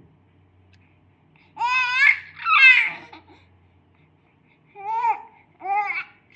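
Infant cooing and babbling: four high-pitched vowel-like calls that rise and fall in pitch, two longer ones about two seconds in and two shorter ones near the end.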